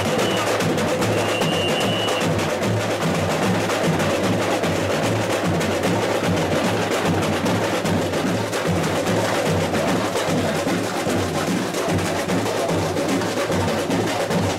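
Samba school bateria playing together: deep surdo bass drums under a dense layer of smaller drums in a steady samba rhythm.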